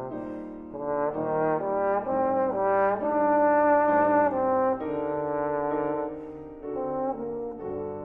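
Trombone playing a slow, sustained melody with piano accompaniment. The line climbs note by note to its loudest notes a few seconds in, then falls back to softer held notes with vibrato.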